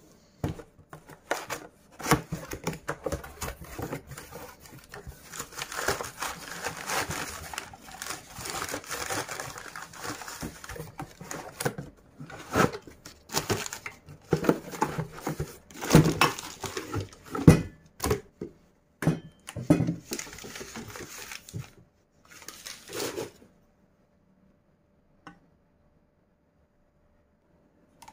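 Plastic wrapping and a cardboard box rustling and crinkling as a packaged teapot set is unpacked, with scattered knocks. It stops about five seconds before the end.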